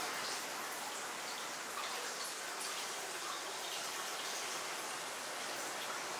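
Water running from a faucet spout into a full hot-spring bath, a steady pouring splash with small drips on the water's surface.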